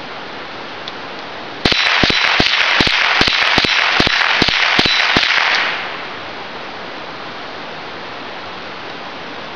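A rapid string of gunshots, about a dozen in four seconds, with a loud hiss under the shots that begins with the first shot and fades out after the last.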